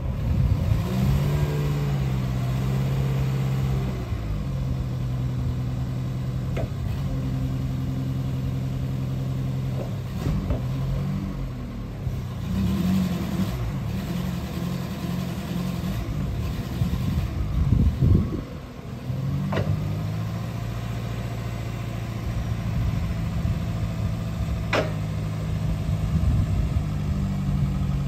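Engine of a 2001 Linde H16T-03 LPG forklift running steadily, its speed rising and falling a few times as the truck is manoeuvred and its triplex mast is raised. A few short sharp clicks are heard now and then.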